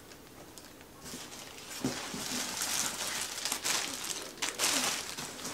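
Clear plastic packaging bags crinkling and rustling as they are handled, starting about a second in and growing louder, with sharp crackles throughout.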